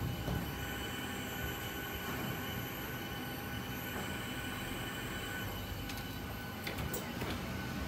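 Steady rush of air with several faint high whining tones: the cabin ventilation of a parked Boeing 737-800 during boarding. A couple of faint clicks near the end.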